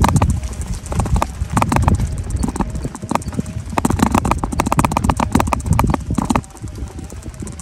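Riding an electric bike: a dense, irregular clatter of knocks over a heavy low rumble, the bike and the recording phone's mount rattling, with wind on the microphone.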